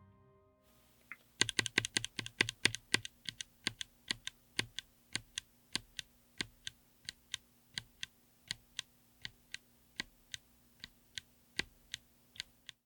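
Keystrokes on a mechanical keyboard with Kailh Lunar linear switches in an aluminium Tofu60 case with an FR4 plate: a quick run of presses about a second and a half in, then slowing to separate keystrokes about two a second. Music fades out at the very start.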